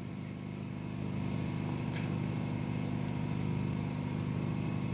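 A steady low mechanical hum that rises slightly in level about a second in.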